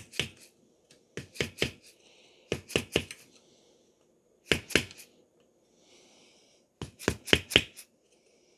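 Sharp taps in short quick groups of two to five, a second or two apart: a hand tool working the rubber water-slinger seal onto the shaft of a pool pump motor.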